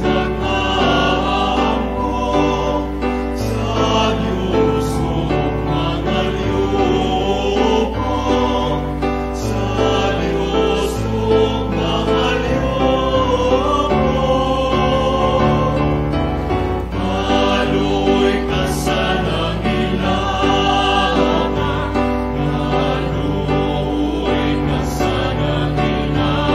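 Choir singing a slow hymn over instrumental accompaniment, held notes running on without a break.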